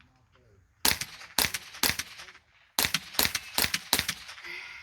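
Seven gunshots fired in two quick strings, three shots then four, about two to three a second, each trailing off briefly.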